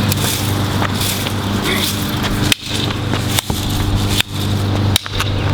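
Sharp strikes on a PS4 controller charger as it is beaten, four of them in the second half, about one every 0.8 seconds. A steady low hum runs underneath.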